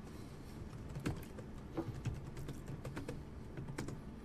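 Faint, irregular keystrokes on a computer keyboard as a terminal command is typed.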